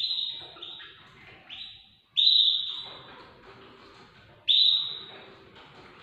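Caged finch calling: three loud high-pitched calls about two seconds apart, each starting sharply and trailing off, with softer chirps between them.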